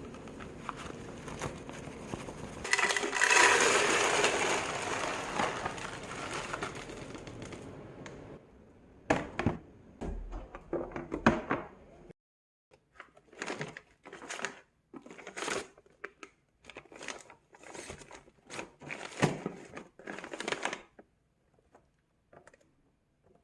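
Kitchen handling noises: a few seconds of steady rushing noise, then a run of short rustles and clicks of objects being handled.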